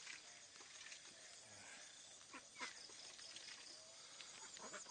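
Quiet rural ambience: faint, steady insect chirring with a few soft knocks near the middle.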